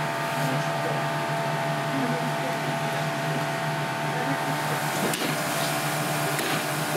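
Steady mechanical hum of kitchen machinery, holding several fixed tones. About five and six and a half seconds in, two sharp knocks as a knife chops the porcupinefish on a plastic cutting board.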